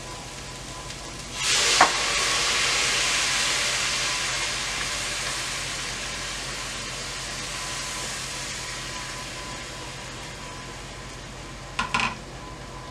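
Chicken broth poured into a hot skillet of butter-and-flour-coated vegetables and chicken, setting off a sudden loud sizzle about a second and a half in that slowly dies down over several seconds. A couple of sharp knocks near the end.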